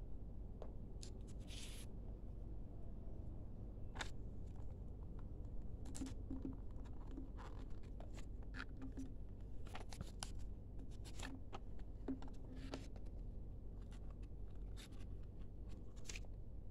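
Cardboard and paper packaging being handled on a wooden table: scattered light taps, scrapes and rustles, over a low steady hum.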